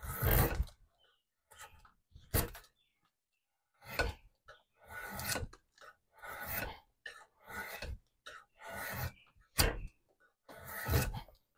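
A hand woodworking tool is pushed across wood in repeated strokes, about ten rasping or shaving scrapes roughly a second apart, some beginning with a sharp knock.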